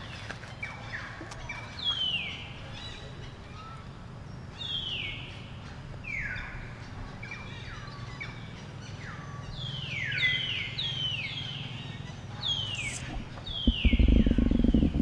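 Birds calling over and over: short whistled notes that each slide down in pitch, often overlapping, above a low steady rumble. Near the end a loud low rumble briefly drowns the low end.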